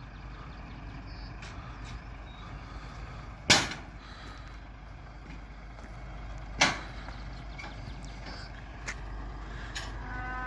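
Steady low rumble broken by two loud bangs about three seconds apart, with a few faint clicks. A cow starts to moo right at the end.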